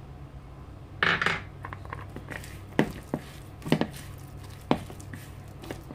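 Chopped onion tipped into a bowl of thick batter with a brief rustling clatter about a second in. Then a spatula stirs it in, knocking sharply against the bowl several times about a second apart.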